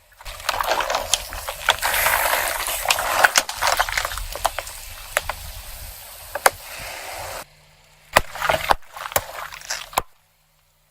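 Objects popping and crunching under a rolling car tyre, with wet sloshing and squelching: a dense run of sharp pops and cracks that breaks off, then a second short burst of pops before it cuts off.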